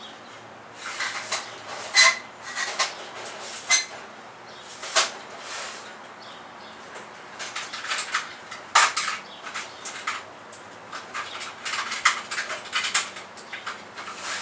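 Small metal parts clinking and rattling in irregular clusters of sharp clicks, as loose bolts and hardware are rummaged through in search of shorter bolts.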